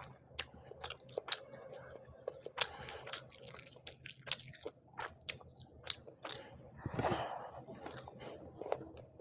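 Close-miked eating by hand: a person chewing a mouthful of rice and curry, with many quick wet mouth clicks and crunches. There is a longer, louder mouth sound about seven seconds in.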